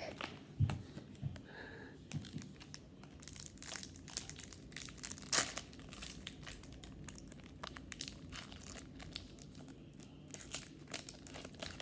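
Foil wrapper of a baseball card pack being torn open and crinkled: an irregular run of crackling, rustling and tearing, loudest about five and a half seconds in.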